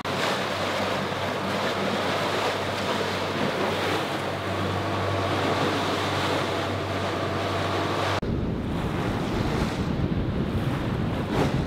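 Wind and rushing sea aboard a catamaran under way, with a steady low engine drone underneath. About eight seconds in the sound changes abruptly to heavier wind buffeting on the microphone, and the drone is no longer heard.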